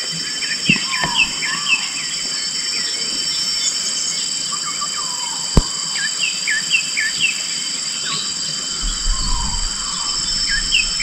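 Rainforest ambience. Insects keep up several steady high-pitched tones, and birds give many short, hooked chirps in scattered runs. A single sharp click sounds about five and a half seconds in.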